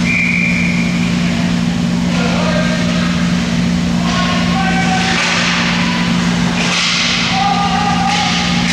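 Ice hockey rink ambience: a steady low hum under scattered distant shouts of players and spectators, with a brief high tone right at the start and short scraping hiss bursts about five and seven seconds in.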